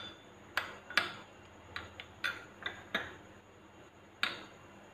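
Metal spoon clinking against a glass bowl of beaten egg while a chicken piece is turned in it: about eight light, irregularly spaced clinks, the last coming more than a second after the rest.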